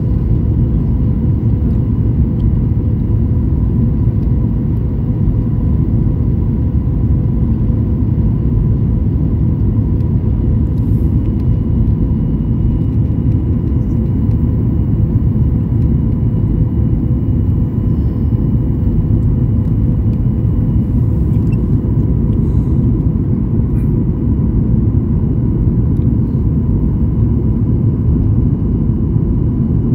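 Steady jet engine and airflow noise inside an airliner cabin in flight, a constant low rumble with a faint steady hum above it.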